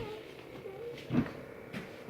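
Toy robot giving off faint, short electronic tones that step up and down in pitch, with a soft knock about a second in.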